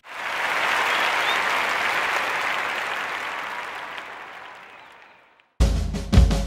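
Applause from a crowd, starting suddenly and fading out over about five seconds. Guitar music then starts near the end.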